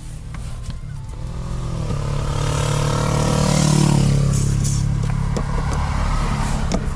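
A motor vehicle, likely a motorcycle, passing close by on the road. Its engine note swells over the first few seconds, peaks about four seconds in with a falling pitch, then eases off over a steady low traffic rumble.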